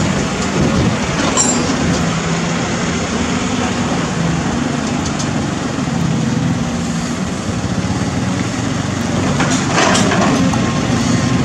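Cat 320D excavator's six-cylinder diesel engine running steadily under load while it loads soil into a dump truck, with a louder scraping rattle of soil and rubble about ten seconds in.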